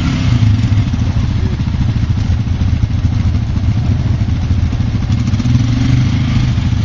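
ATV engines running steadily at low revs, with a fast, even low pulse and no revving.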